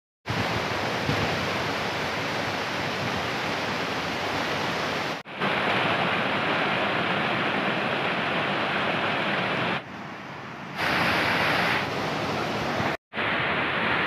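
Steady rush of water from a waterfall and a mountain stream, heard as a series of clips cut one after another. It breaks off for an instant about five seconds in and again near the end, and drops quieter for about a second shortly before that.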